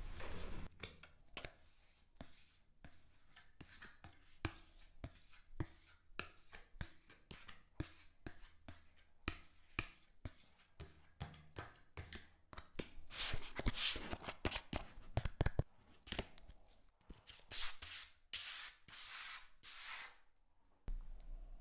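A plastic scraper slicing and shaving a compacted block of kinetic sand: a run of short, crunchy, crackling scrapes, with louder and longer scrapes in the second half.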